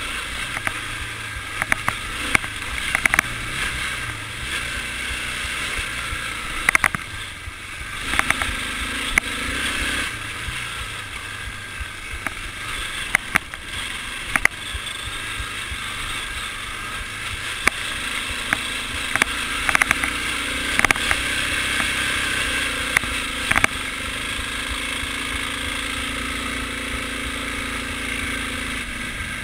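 ATV engine running under way over rough snowy ground, the engine note rising and holding steadier in the second half, with frequent sharp knocks and rattles from the machine jolting over bumps.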